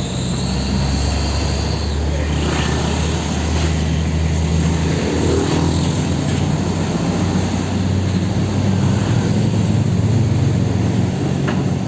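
Heavy diesel engine running steadily, its pitch shifting about five seconds in, with faint metallic squeaks over it.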